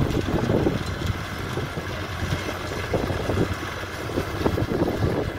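Farm tractor engine running steadily as it pulls a working stone picker machine through loose soil.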